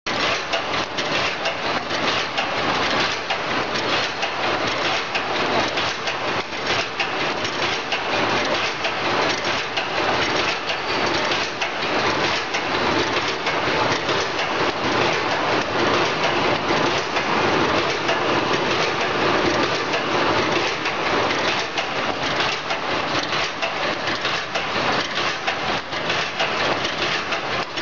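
Automatic wire mesh fence panel welding machine running, with a dense, steady clatter of rapid clicks and knocks at an even loudness.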